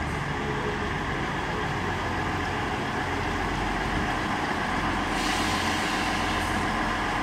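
ScotRail Class 158 diesel multiple unit running with a steady diesel engine rumble as it draws to a stop alongside the platform. About five seconds in, a hiss joins it for a couple of seconds.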